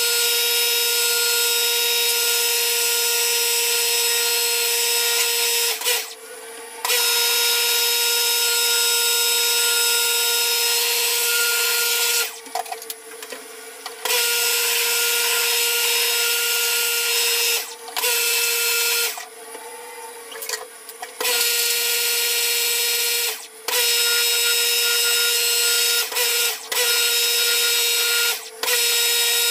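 Electric pressure washer running, a steady motor whine with the hiss of the water jet. It stops and restarts several times, with its longest breaks, of about two seconds, a little before and a little after the middle.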